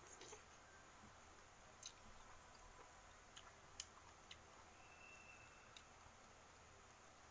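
Near silence with faint sounds of eating by hand: a soft mouth sound as fingers are licked at the start, then a handful of soft, sharp clicks from the fingers and mouth while eating rice.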